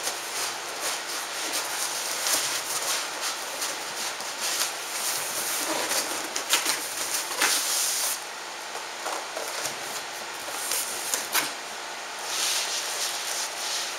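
Rustling and handling noise with many scattered sharp clicks and taps, as of packaging and a new item being handled.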